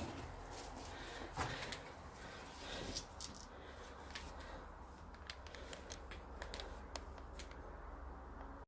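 Footsteps on gritty debris: a scatter of light, irregular clicks and scrapes over a low steady rumble.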